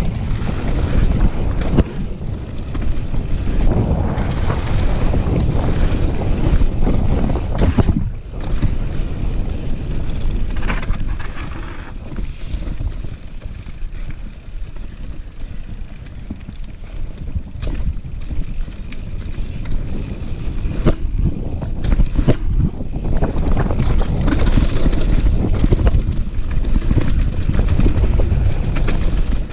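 Wind buffeting the camera microphone as a downhill mountain bike runs fast down a gravel trail, with the tyres rolling over loose stones and scattered knocks from the bike over bumps. It eases off through the middle and builds again near the end.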